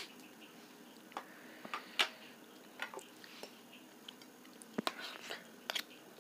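Metal spoon clinking and scraping on a steel plate while scooping up soft semolina shira, with soft eating sounds between; a dozen or so short, sharp clicks and scrapes at uneven intervals.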